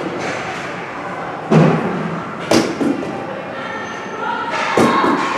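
Four sharp knocks of a ball hockey ball and sticks hitting the rink boards, over a steady echoing hubbub of players' and spectators' voices.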